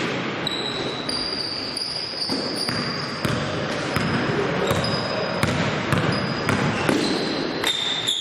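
Basketball game play on an indoor court: the ball bouncing with sharp repeated thuds, and thin high squeaks coming and going throughout.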